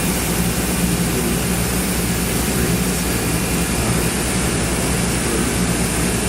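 CNC machining center running through its program: a steady, loud machine hum with an even hiss over it.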